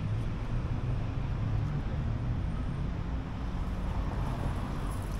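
Steady low rumble of city traffic, even throughout with no distinct knocks or splashes.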